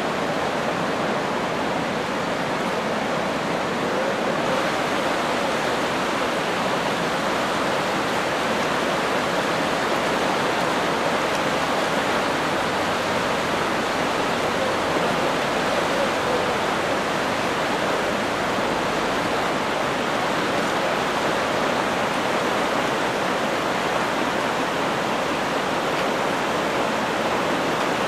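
Floodwater of the Jizera river in flood, rushing steadily with an even, unbroken noise.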